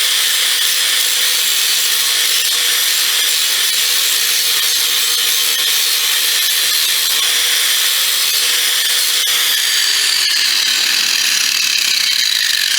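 Angle grinder running, cleaning up the metal of the truck bed, then switched off about ten seconds in, its whine falling as the disc spins down.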